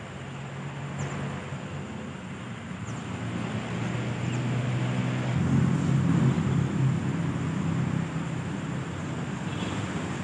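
Low steady hum of a motor vehicle engine, swelling louder about halfway through and easing off near the end.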